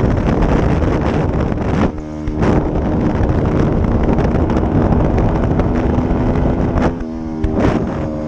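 Heavy wind noise on a helmet-mounted camera while riding an SSR 125cc pit bike at road speed. The small single-cylinder engine's note shows through the wind briefly, after a short dip about two seconds in and again around seven seconds.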